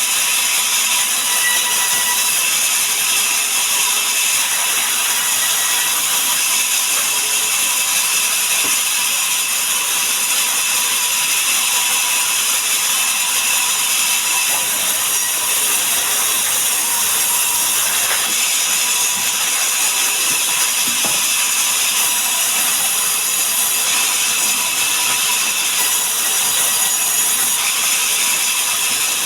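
Sawmill saw cutting mahogany, a loud, steady, high-pitched machine whine and hiss with no breaks.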